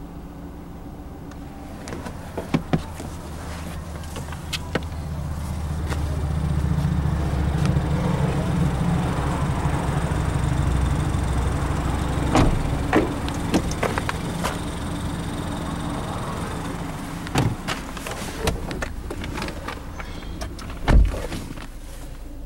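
A low rumble swells for several seconds and fades, with scattered clicks and knocks of the car being handled. Near the end comes a single heavy thump of a car door shutting.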